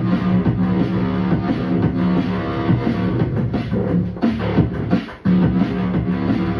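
Background music: a pop song with drums, guitar and a steady beat, dropping out briefly about five seconds in.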